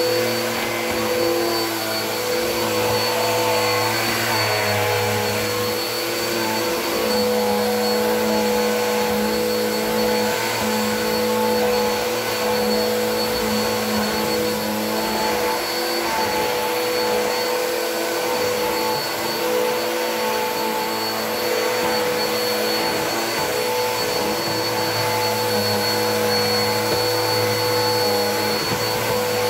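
Bissell vacuum cleaner running continuously: a steady motor hum with a high whine on top, its pitch wavering slightly as it works.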